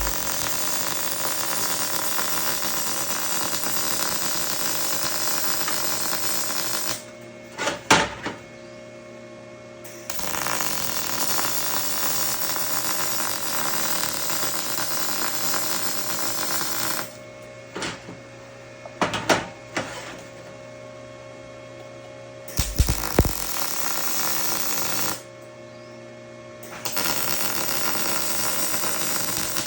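Balmer MIG welder's arc crackling in steady runs of several seconds: two long ones, then two shorter ones near the end. Short knocks and clicks fall in the pauses between runs, with a faint steady hum underneath.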